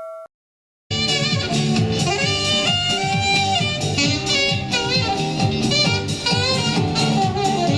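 The last ring of a bell cuts off just after the start; after a short silence, music with a steady beat and a melody starts about a second in and plays on.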